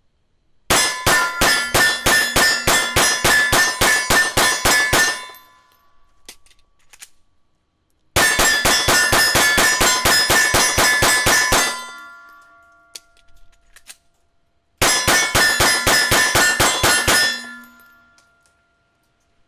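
Three strings of rapid pistol fire from a Glock G19 9mm, about five shots a second, with the steel silhouette target ringing under the hits. The strings stop about five, eleven and seventeen seconds in, each followed by a short fading ring.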